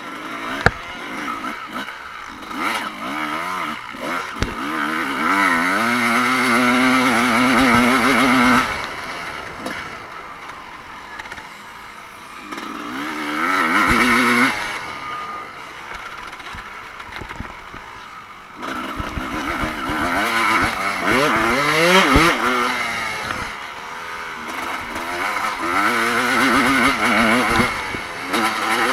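Evo-era motocross bikes racing, their engines revving up and down through the gears. The bikes come loud several times, about six, fourteen, twenty-one and twenty-six seconds in, and fade between.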